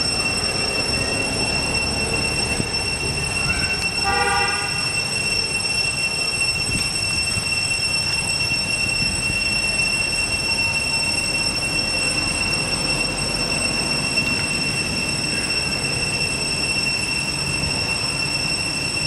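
A steady, shrill high-pitched whine with even overtones. Over it, a short squealing call is heard about four seconds in.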